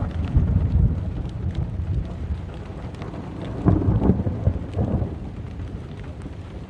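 Thunder rumbling over steady rain, swelling loudest just after the start and again, with a sharper peak, about four seconds in; faint raindrop ticks throughout.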